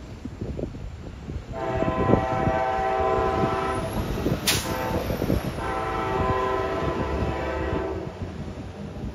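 CT Rail train's horn sounding two long blasts of a steady chord, each about two and a half seconds, as the train approaches the station, over low wind rumble on the microphone.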